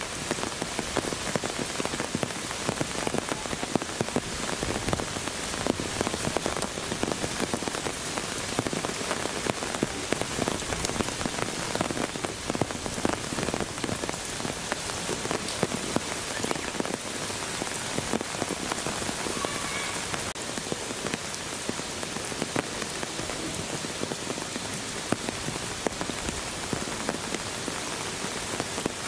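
Steady rain falling: an even hiss dotted with many small, sharp drop ticks.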